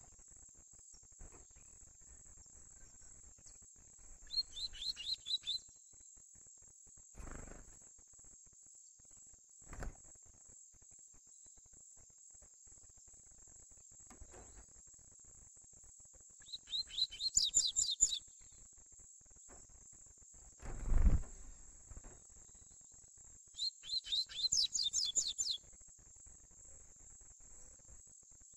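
Young double-collared seedeater (coleiro) singing three short phrases of rapid high notes, a tui-tui type song, over a steady high insect drone. A few dull thumps, the loudest about three-quarters of the way through.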